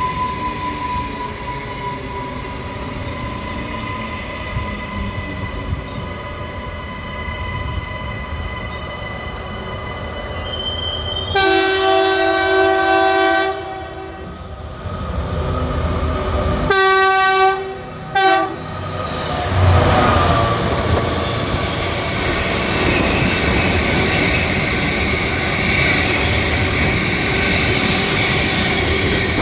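Pacific National diesel freight train sounding its air horn as it approaches: one long blast about 11 seconds in, then a shorter blast and a quick toot a few seconds later. The train then passes with its wagons rumbling and wheels squealing.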